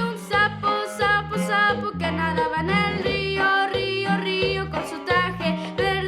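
Accordion music: a lively tune played over steady, alternating bass notes.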